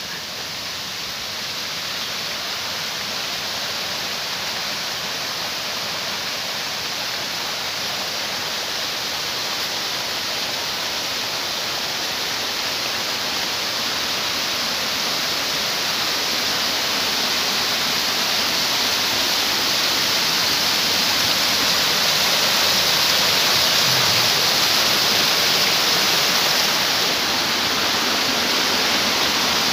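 Steady rush of flowing water from a stream beside a forest path, growing gradually louder toward a peak a little past the middle.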